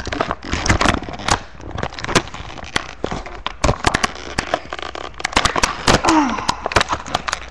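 Clear plastic blister packaging crackling with many irregular sharp clicks as hands work it open close to the microphone.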